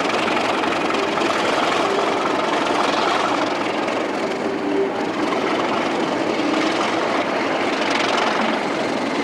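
Class 37 diesel locomotive engine running under power, a steady loud mechanical noise with brief tones coming and going.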